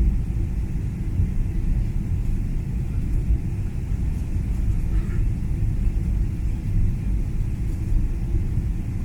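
Steady low rumble inside an airliner cabin as the jet rolls along the ground after landing: engine and wheel noise with no rise or fall.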